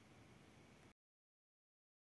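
Near silence: faint room tone that cuts off to dead silence about a second in.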